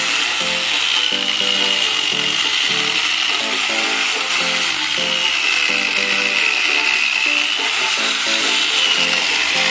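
Corded electric chainsaw running as it cuts through a log, its high motor whine sagging and recovering in pitch a few times. Background music with a steady rhythmic beat plays underneath.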